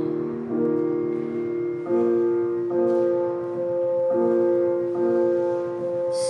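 Recorded song playing in an instrumental passage with no singing: sustained chords that change about once a second.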